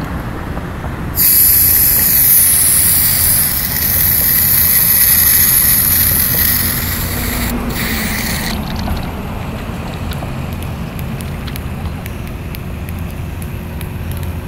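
Aerosol can of hair product spraying with a hiss: one long spray of about five and a half seconds starting about a second in, then a second, shorter spray of about a second.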